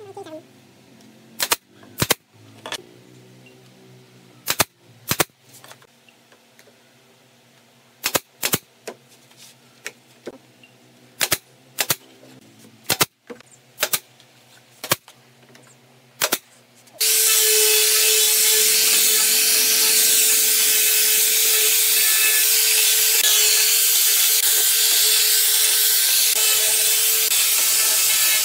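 A pneumatic nail gun fires about fourteen single sharp shots, often in quick pairs, as it nails the wooden frame pieces together. About 17 seconds in, a handheld angle grinder starts working the wood and runs steadily and loudly with a hiss and one steady tone.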